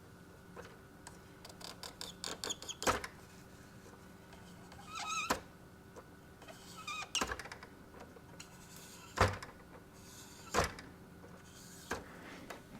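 Faint rubbing and handling as a cleaning pen is wiped across a thermal printhead, with a few brief squeaks and scattered light clicks and taps.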